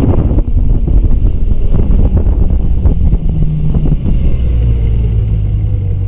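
Snowmobile engine running under way across the snow, its note dropping in the second half as the machine slows.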